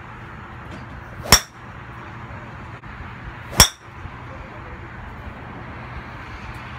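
Two sharp golf club strikes on golf balls, a little over two seconds apart, each with a short metallic ring, over a steady background hiss.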